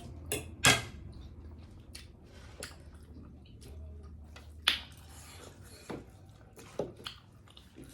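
Close-up eating sounds: people chewing food, with sharp mouth clicks and smacks now and then, two of them clearly louder, one near the start and one about halfway through.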